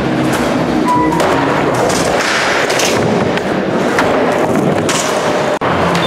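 Loud music soundtrack running continuously, with a momentary dropout about five and a half seconds in.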